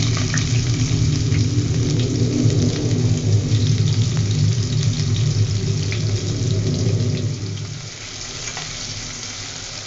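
Freshly added chopped onions sizzling and crackling in hot oil in an aluminium pot, over a low steady rumble that fades about three-quarters of the way through. The sizzle eases as a spoon starts stirring the onions near the end.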